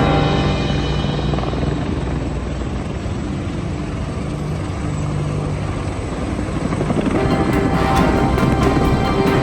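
Helicopter flying over with a steady rotor beat, getting louder in the last couple of seconds, with music playing underneath.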